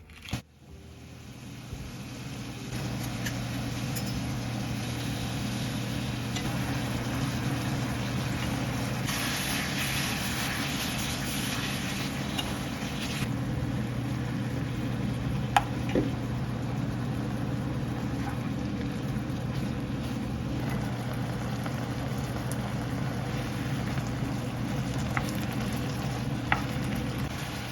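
Pork neck and shishito peppers sizzling in a frying pan over a steady low hum. The sizzle swells for a few seconds about nine seconds in, and a utensil clicks against the pan a few times.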